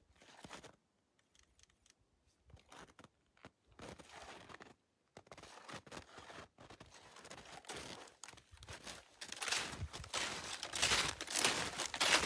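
Footsteps crunching in snow, sparse and faint at first, growing louder and closer together over the last few seconds.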